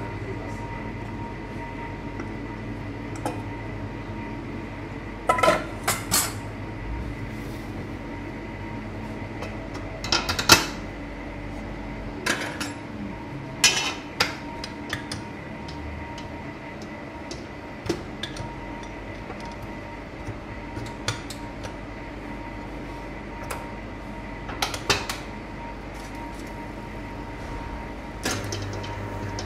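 Stainless steel bowls and stand-mixer parts clinking and knocking as they are handled: a few sharp metal clanks, spaced seconds apart, over a steady kitchen hum. Near the end a low hum grows louder.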